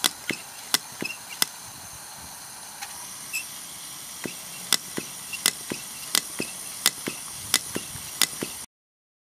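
Start-up of a Philips MP 1002 CA Stirling generator's paraffin burner: a steady high hiss with sharp, irregular metallic clicks, coming about twice a second in the second half. The sound cuts off suddenly near the end.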